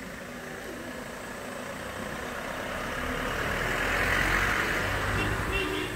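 A vehicle engine rumbling, with a rush of noise that builds steadily to a peak about four seconds in and then eases off slightly.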